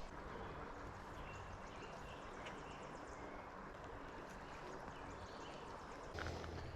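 Creek water flowing, a faint steady rushing, with a brief louder handling noise about six seconds in.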